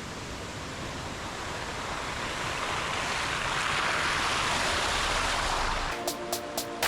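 Steady rushing noise with no pitch to it, swelling over the first few seconds. Near the end, music with a ticking beat begins.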